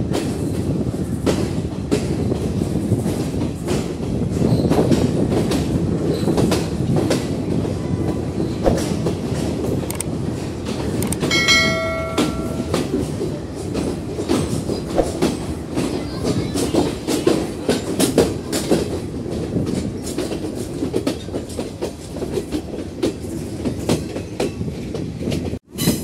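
Passenger train running on the track, heard from aboard: a steady rumble with the wheels clicking over rail joints. About halfway through a short high tone sounds for about a second, and near the end the sound breaks off briefly.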